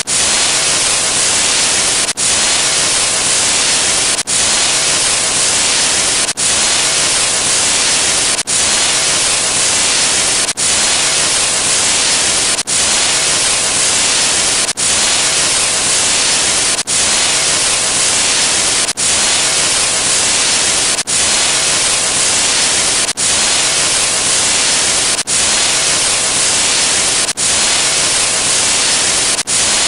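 Loud static white-noise hiss, a sound effect, broken by a brief dip about every two seconds.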